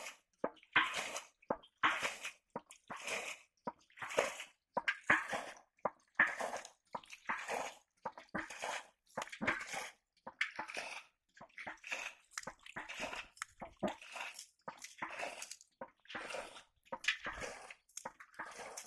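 Shallow muddy water splashing and sloshing in quick, uneven bursts, about one or two a second.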